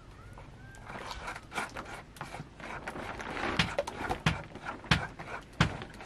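Thin batter being mixed by hand in a plastic bowl with wet squelching, then beaten with a metal spoon that knocks against the bowl about every two-thirds of a second.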